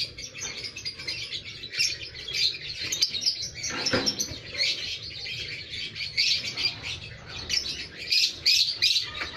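Lovebirds in breeding cages chirping and chattering continuously in short, high calls, with a single knock about four seconds in.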